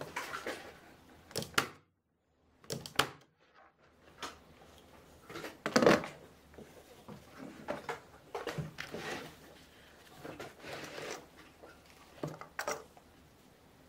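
Electric staple gun shooting staples through folded foam pads into the corners of a wooden canvas stretcher frame: several sharp clacks, the loudest about six seconds in, with handling knocks and rustling between.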